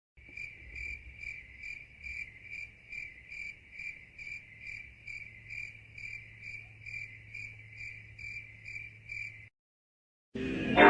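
Crickets chirping in an even rhythm, about two and a half chirps a second, stopping about nine and a half seconds in. Just before the end, loud music begins.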